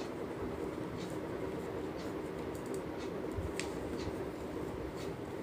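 Metal knitting needles clicking lightly and thick cord rustling as stitches are knitted, a few faint scattered clicks over a steady low background hum.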